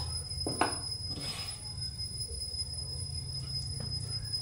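A small steel bowl set down on a desk with a single short clink about half a second in, over a steady low hum.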